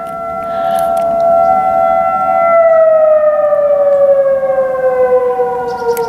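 Outdoor tornado warning siren sounding for a scheduled test, a steady tone that about two and a half seconds in starts falling steadily in pitch.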